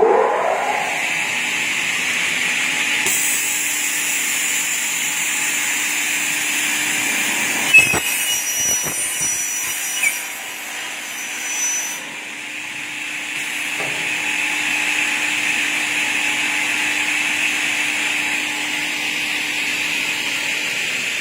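Kingmac P30 double-head aluminium cutting saw running and cutting aluminium profiles. The motors spin up at the start into a steady whine with a hissing cutting noise, and two sharp clacks come near the middle.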